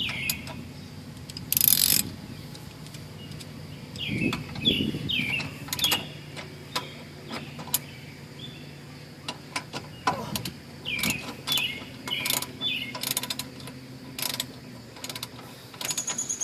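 Ratchet wrench clicking in short bursts, with metal tool clinks, as a rear shock absorber's lower mounting bolt is driven in.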